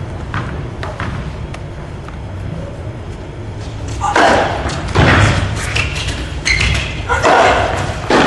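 Tennis ball bounced a few times, faintly, then served and struck back and forth with rackets from about four seconds in: a string of loud hits roughly a second apart, each echoing around the large hall.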